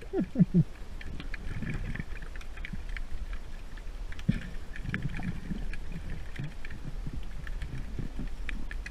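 Underwater sound picked up through an action camera's housing while snorkeling: a steady low rumble of moving water with scattered small clicks and crackles, and a few short falling sounds near the start.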